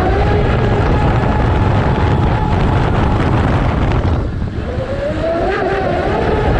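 Onboard sound of a Pro Boat Zelos 48 RC catamaran converted to a brushless motor on 10S, running fast: the motor's high whine over heavy water and wind rush. The whine drops away about four seconds in, then climbs in pitch again as the boat speeds back up.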